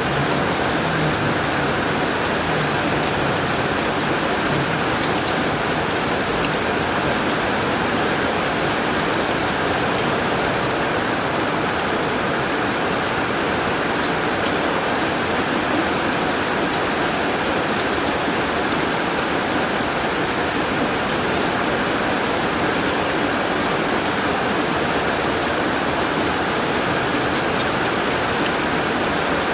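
Heavy rain falling steadily on a tin roof, a dense even patter with no break.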